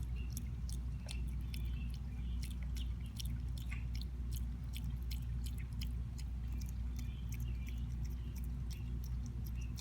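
A possum chewing blueberries: quick clicky chewing sounds, about three or four a second, over a steady low hum.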